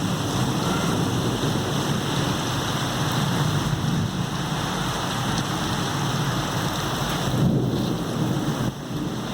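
Heavy rain pouring down steadily, with a low rumble running underneath it.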